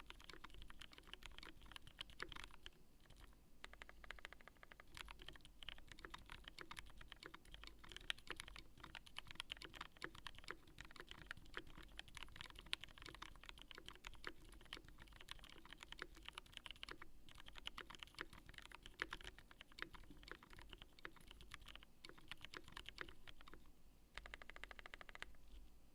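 Continuous fast typing on a TINA-C mechanical keyboard with 67 g Gateron Black linear switches in Zealio housings, a dense stream of key clacks. Near the end comes a quick run of evenly spaced keystrokes.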